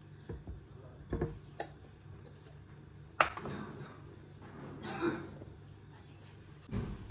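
A few clinks and knocks of kitchen utensils against a mixing bowl while pizza dough is being mixed, the sharpest about three seconds in.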